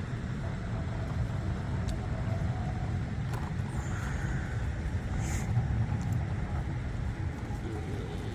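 Steady low rumble of a small vehicle rolling along a paved path, with wind rumbling against the microphone.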